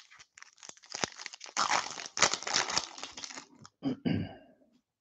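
Foil wrapper of a 2021 Topps Series 2 baseball card pack being torn open and crinkled, a dense crackling rustle that stops shortly before the end.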